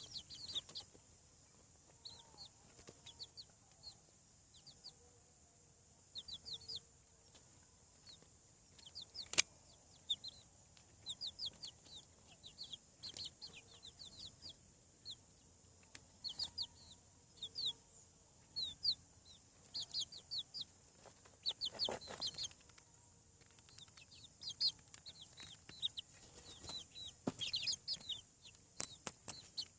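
Young chickens peeping: many short, high, falling peeps in quick runs, with a few sharp clicks and a brief rustle about two-thirds through. A faint steady high whine runs underneath.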